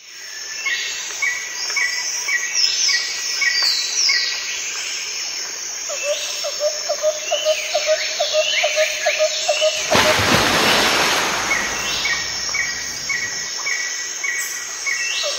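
Birds chirping in repeated short calls, with quick falling whistles and evenly spaced chirp series. About ten seconds in, a loud rush of noise covers everything for a couple of seconds.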